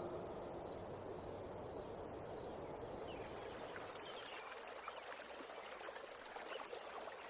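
Faint steady background hiss with no voice, as the echo of the reciter's last word dies away in the first moment.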